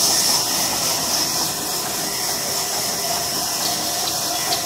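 Large belt-driven vertical band saw running, its blade ripping through a long timber plank: a steady high hiss.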